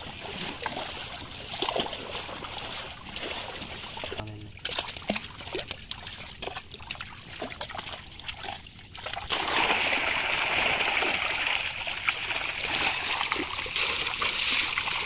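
Water splashing and sloshing as live fish thrash in a seine net and hands scoop them out. It starts as scattered splashes, then turns into louder continuous churning about nine seconds in.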